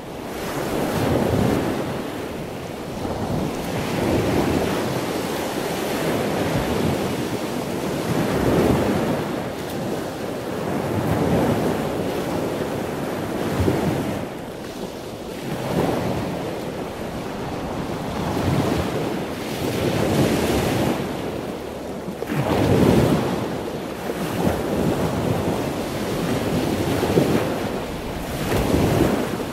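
Sea water rushing and splashing along a moving boat's hull, with wind buffeting the microphone; the wash surges and eases every two or three seconds.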